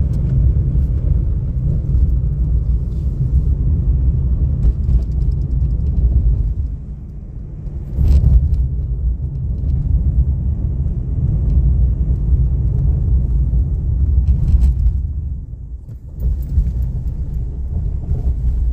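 Car driving, a steady low rumble of engine and road noise heard from inside the cabin, dipping briefly in loudness twice.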